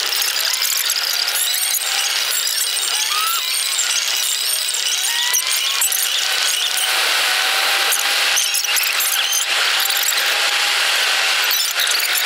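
A car on the move: a steady, loud hiss of road and wind noise, with faint thin tones that glide slowly upward several times.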